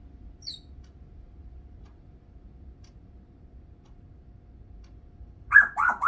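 Congo African grey parrot making drowsy sounds as she falls asleep: a brief high, falling chirp about half a second in, then three short, loud mumbled syllables near the end.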